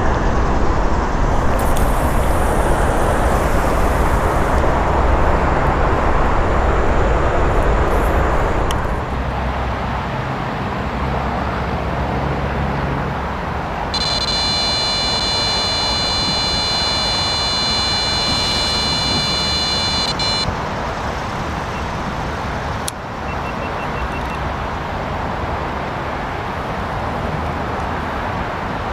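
Steady road-traffic rumble and hiss, louder for the first several seconds. In the middle a high-pitched whine with several overtones holds for about six seconds and stops abruptly, and a single sharp click comes later.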